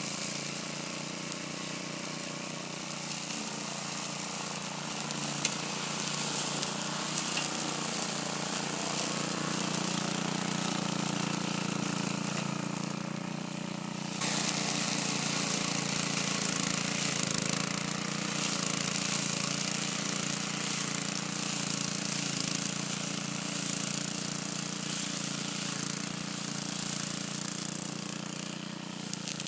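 Walk-behind rotary lawn mower's small engine running steadily under load while cutting grass, stepping up louder about halfway through.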